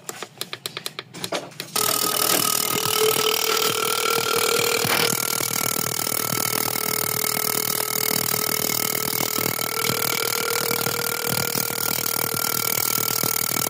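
Fuel injector tester working on the engine's injectors: a few sharp injector clicks, then from about two seconds in the injectors fire rapidly with a steady spray hiss and a motor hum. The injectors are being checked for a misfire and low power after an overhaul.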